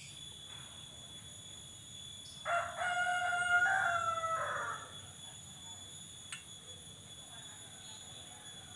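A rooster crows once, starting about two and a half seconds in and lasting about two seconds.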